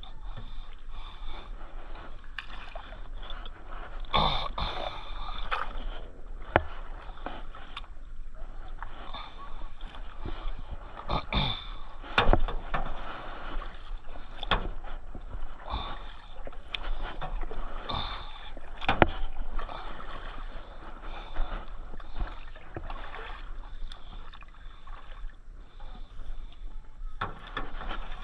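Paddling a small boat on a river: water sloshing and splashing from paddle strokes. Scattered sharp knocks, the loudest about twelve seconds in.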